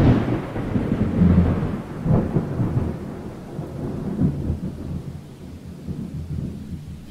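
Rolling thunder: a loud rumble that slowly fades, swelling again a few times, over a faint rain-like hiss.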